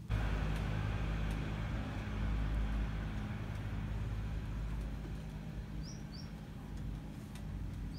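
An engine running with a steady drone, with a few short bird chirps about six seconds in and again near the end.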